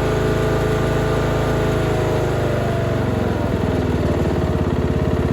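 Troy-Bilt Bronco riding mower's engine running, then slowing down about two to three seconds in and settling into a slower, pulsing idle.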